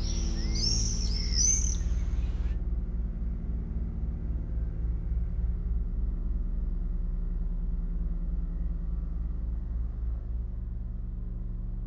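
Electronic sound-art drone: a bed of low steady tones with a fast pulsing throb. Over it, a flurry of high bird-like chirps cuts off abruptly about two and a half seconds in.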